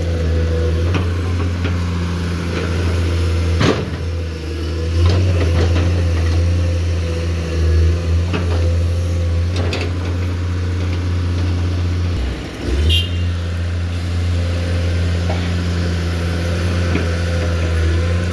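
Komatsu PC210 excavator's diesel engine running steadily, with occasional sharp knocks and clanks from the bucket working. The engine note dips briefly about twelve seconds in.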